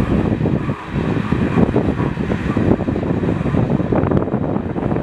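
Iron ore hopper wagons of a heavy freight train rolling past, a loud, continuous low rumble and rattle of steel wheels on the rails.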